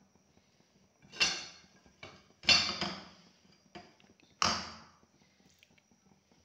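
A metal slotted spoon scraping and knocking against a steel cooking pot three times, each stroke ringing briefly, with a few small clinks between.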